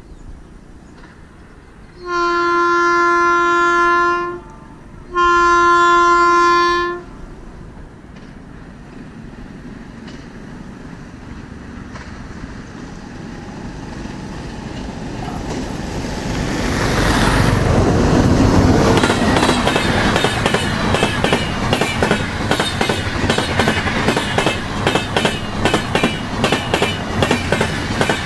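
WAP-7 electric locomotive sounding two long horn blasts, then running past at speed. Its LHB passenger coaches follow, with the wheels clattering over rail joints in a steady rapid rhythm.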